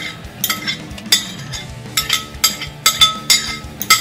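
Metal spoon and fork clinking repeatedly against a ceramic bowl, about a dozen irregular clinks that each ring briefly at the same pitch, with music playing underneath.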